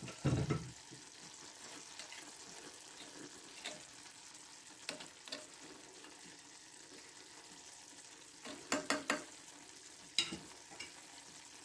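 Meat tagine sizzling faintly in a clay tagine on the stove, its sauce cooked down until none is left. A metal spoon stirs it, with a low knock near the start and scattered clicks and scrapes of the spoon against the clay, a cluster of them about nine seconds in.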